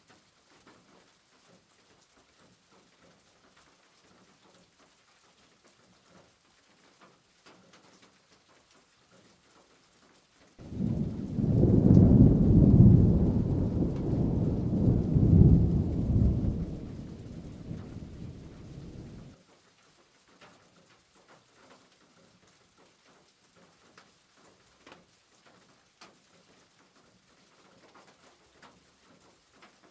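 Faint squishing and rustling of a hand mixing grated vegetables and flour batter in a plastic bowl. About ten seconds in, a loud low rumble starts suddenly, swells twice and fades over about eight seconds before cutting off.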